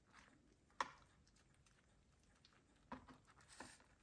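Quiet kitchen handling noises: a soft blanched cabbage leaf rustling as hands fold and roll it around minced-meat filling on a plastic cutting board. There is a sharp click about a second in, a couple of soft knocks near the end, and a short rustle just after them.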